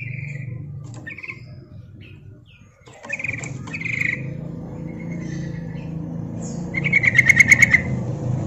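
Yellow-vented bulbul calling: a few short chirps, then a fast run of notes about seven seconds in, over a steady low hum. This is a female's call, used to lure males.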